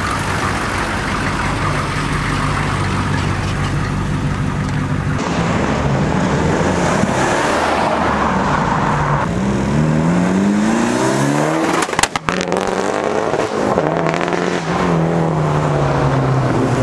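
Cars driving away one after another, engines running under load. At first a large van's engine hums steadily at low revs. Then cars accelerate, their engine notes climbing, with a short crackle and dropout a little past halfway and another engine pulling away near the end.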